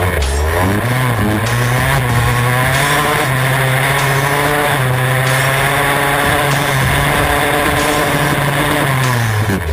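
Two-stroke enduro motorcycle engine running at high, fairly steady revs while riding. The pitch climbs in the first half second and drops near the end.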